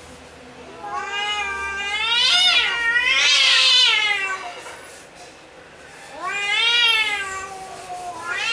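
Two cats in an aggressive standoff, yowling at each other: long, drawn-out yowls that rise and fall in pitch. The first and loudest lasts about three seconds, a second comes near the middle and a third starts at the very end.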